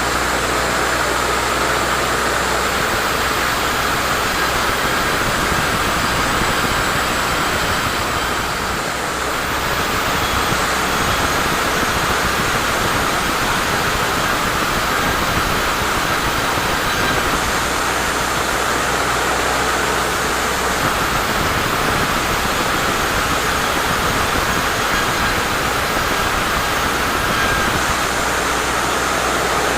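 Sawmill saw running steadily as it cuts through a teak log, with a brief dip in level about nine seconds in.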